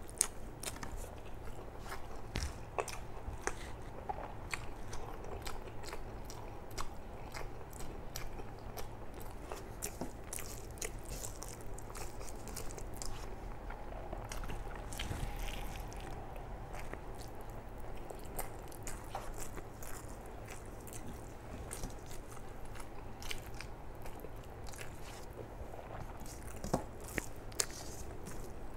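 A person chewing mouthfuls of rice and chicken liver and gizzard curry close to the microphone: steady wet mouth clicks and smacks, many small ones in quick succession with no pause.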